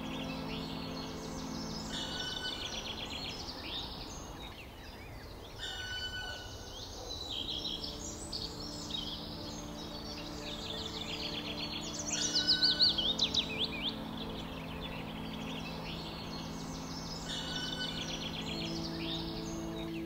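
Small songbirds singing and chirping, repeated quick high song phrases overlapping, with a louder burst of song about twelve seconds in. Soft background music with held low notes plays underneath.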